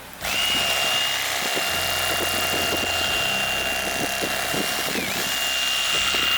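A motor running steadily with a high whine over a loud rushing noise, starting abruptly; the whine dips briefly in pitch about five seconds in, as if the motor were loaded for a moment.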